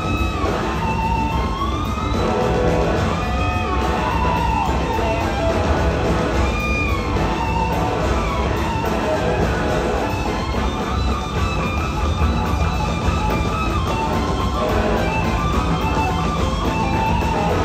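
Live rock band playing an instrumental jam: a lead electric slide guitar glides up and down between notes in repeated swooping phrases over organ, bass and drums.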